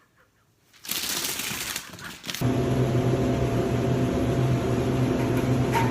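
Near silence, then about a second and a half of loud hissing noise that stops suddenly, followed by a steady low hum under a noisy hiss.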